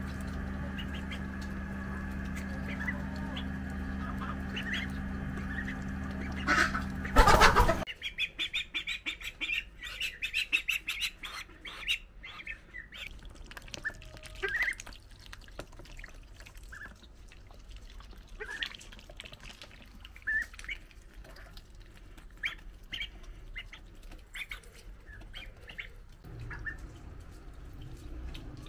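Young ducks giving short squawks and peeps while feeding, their bills clicking and splashing in a tub of water. For the first seven seconds a steady hum sits under the calls, ending after a loud burst about seven seconds in.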